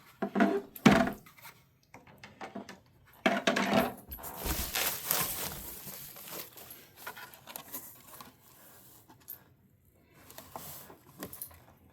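Hard plastic 3D-printed body pieces clicking and knocking together as they are handled, with a few seconds of rustling in the middle.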